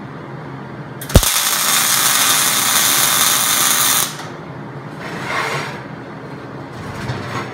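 Electric arc welding a tack on a steel post: the arc strikes with a sharp crack about a second in, crackles and hisses steadily for about three seconds, then cuts off suddenly. Fainter, short handling sounds follow.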